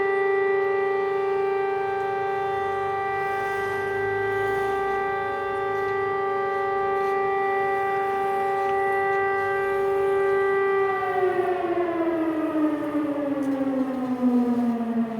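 Civil-defence warning siren holding one steady wailing tone, then sliding steadily down in pitch from about two-thirds of the way through. This is the "Attention everyone!" alert, sounded for a drill.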